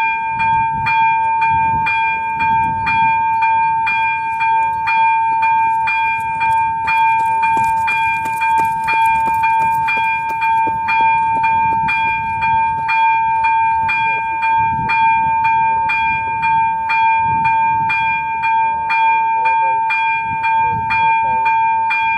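Level-crossing electronic bell (ZV-02, with AŽD 71 warning lights) ringing continuously: a loud high tone pulsing at a quick, even rate, the warning that a train is approaching.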